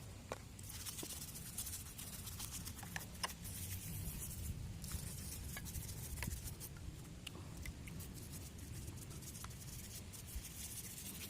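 Brush scrubbing a cleaning mixture over a motorcycle engine's outer casing: faint, scratchy bristle strokes with many small ticks and clicks.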